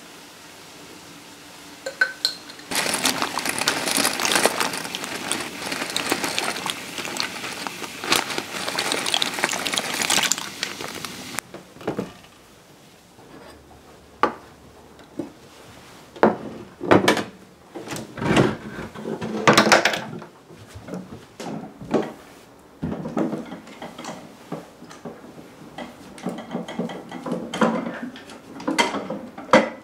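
Kitchen handling sounds: a loud even rushing noise for about nine seconds, then a run of separate clinks and knocks of glassware, pots and dishes being picked up and set down. Near the end come a few knocks of a wooden folding table being handled.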